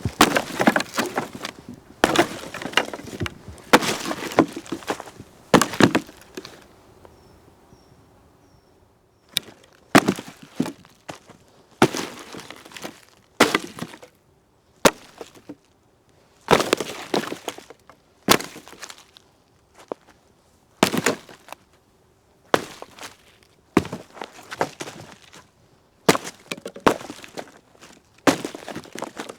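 A tree trunk being kicked over and over: clusters of sharp knocks every second or two, each trailing off in a short crackle, with a pause of a few seconds about six seconds in.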